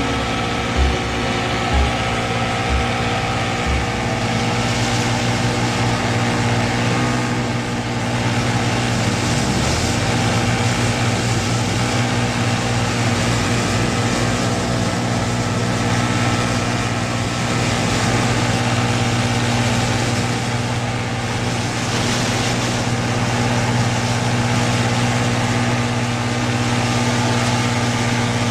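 Motorboat engine running steadily under way, an even low drone, with a few low thuds fading out in the first seconds.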